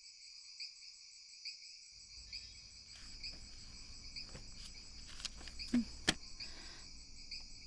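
Faint, steady chirring of crickets. A few soft rustles and a short sharp knock come near six seconds in.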